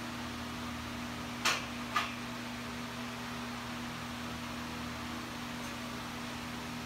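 Steady mechanical hum and fan-like noise, with two sharp knocks about half a second apart, a second and a half to two seconds in.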